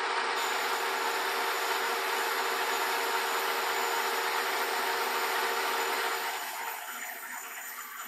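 Metal lathe taking a facing cut across a sawmill saw collar: the tool cutting the steel face with a steady hiss, a few steady tones from the running machine under it, chips spraying. The cut is cleaning up the collar's crushed, burred face. The sound eases off about six seconds in.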